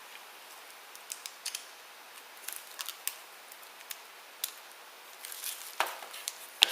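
Light, scattered clicks and taps from an iPhone 5 screen assembly being handled and moved about, about a dozen small ticks, closer together in the second half.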